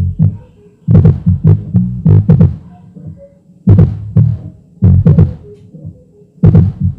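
Bass-heavy music played loud through a subwoofer, a JH-157 driver in a scoop-type bass box. Deep bass thuds with sharp attacks come in uneven groups, a quick run of them about a second in, then single hits, with faint melody notes between.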